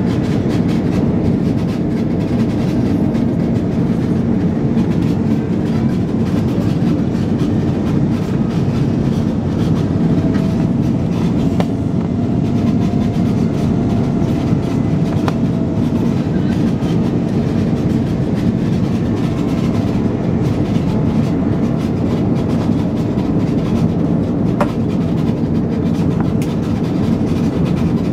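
Steady cabin noise of an Airbus A330 airliner on approach: a loud, even rumble of engines and airflow heard inside the cabin, with a faint wavering tone in the middle.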